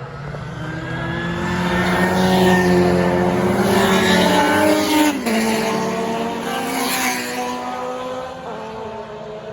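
Historic Formula 2 racing cars at full throttle, approaching and passing close by. The engine notes rise and swell, drop sharply in pitch as they pass about five seconds in, then fade into the distance.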